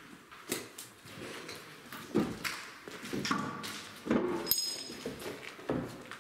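Footsteps and scuffs on a debris-strewn floor: a string of irregular thumps and taps. A short high ping sounds about four and a half seconds in.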